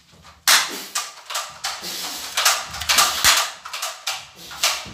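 Toy pistols firing: about a dozen sharp gunshot-like bangs, irregular at two to three a second, starting about half a second in.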